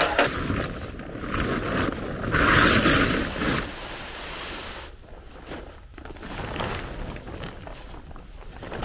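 A knock at the very start, then a large plastic sheet rustling and crackling as it is unrolled and dragged over grass, loudest from about two and a half to three and a half seconds in.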